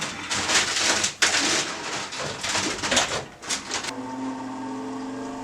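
Irregular clattering and rustling of metal objects being handled. About four seconds in it gives way abruptly to a steady machine hum.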